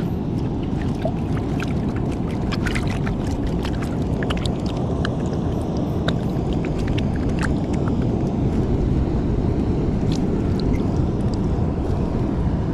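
Steady rushing noise of wind and sea over an exposed reef flat, with many small sharp clicks and ticks scattered through it.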